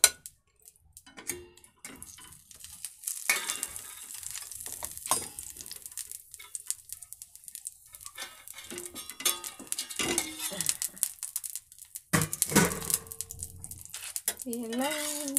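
Dosa batter sizzling in oil on a hot iron tawa, a steady hiss, with scattered clinks and knocks of a steel lid being handled and lifted off the pan.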